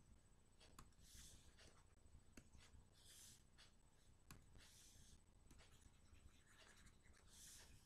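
Near silence with a few faint stylus strokes scratching across a pen tablet, four short scrapes and some light taps.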